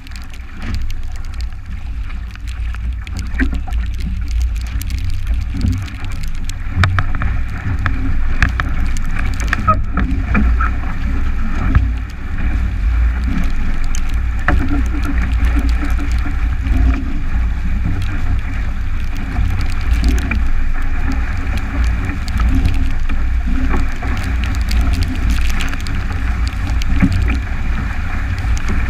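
Wind buffeting a boat-mounted action camera's microphone over rushing water as a 29er skiff sails fast in strong wind, with scattered sharp ticks of spray striking the hull and camera.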